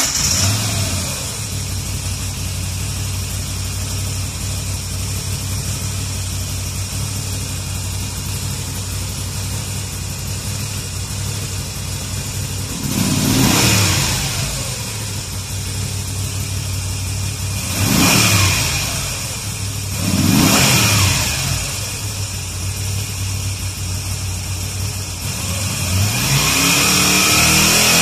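Moto Guzzi V7 Stone's 853 cc air-cooled V-twin idling just after start-up. It is revved briefly three times, then brought up to a higher held speed near the end.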